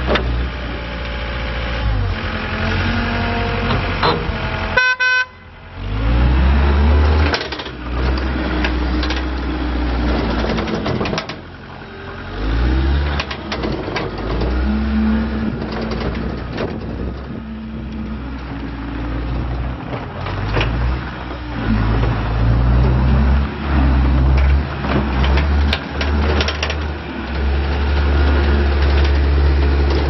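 John Deere 323D compact track loader's diesel engine running under load, revving up and down as the machine drives and works its loader. There is a short beep about five seconds in.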